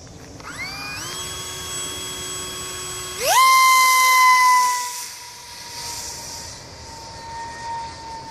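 Electric motor and propeller of a small RC foam plane spinning up to a steady whine, then revved sharply to full throttle a little after three seconds in with a loud, high whine. It fades after a couple of seconds, its pitch slowly falling as the plane flies away after the hand launch.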